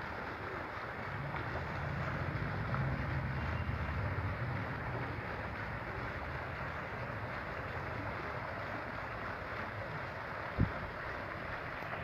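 Water jets of a tiled garden fountain splashing steadily into the basin. For a few seconds wind rumbles on the microphone, and a single brief thump comes near the end.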